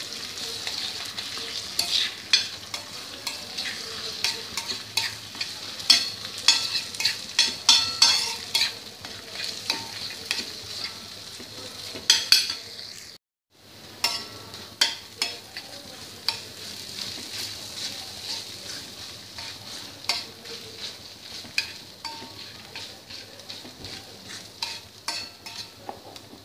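Egg and prawns frying on a flat tawa while a spatula breaks up the set egg into crumbs. Many sharp, irregular scrapes and taps of the spatula on the pan sound over a steady sizzle. The sound cuts out for a moment about halfway through.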